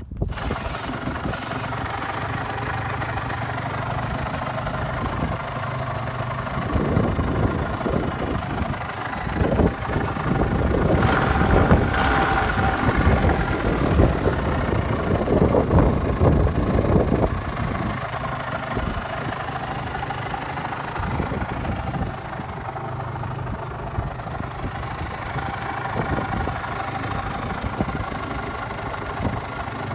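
Suzuki RGV250Γ (VJ22) two-stroke V-twin firing up and idling, then revved repeatedly for about ten seconds in the middle before settling back to a steady idle.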